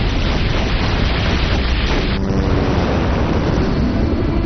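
Loud, steady rushing noise of a volcanic eruption. About two seconds in, the hiss thins and a faint steady hum comes in underneath.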